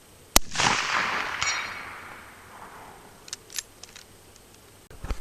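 A single shot from a Winchester Model 94 lever-action rifle in .30-30, a sharp crack followed by a long rolling echo that fades over about two seconds. A few light clicks follow about three seconds in.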